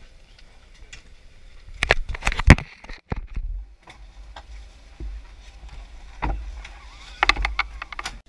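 Knocks and bumps from luggage and a handheld camera being moved about, over a low handling rumble: a cluster of sharp knocks about two seconds in, a few single bumps, and another quick cluster near the end as a backpack is handled.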